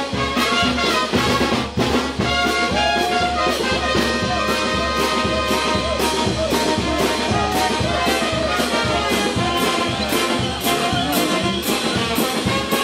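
Live brass band playing dance music, with horns carrying the melody over a steady drum beat.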